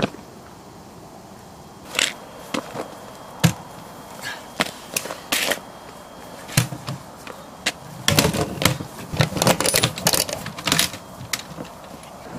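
Sharp clicks and knocks, spaced out at first, then a quick flurry about eight seconds in: a hard-shell briefcase being handled and opened, its latches and lid clicking.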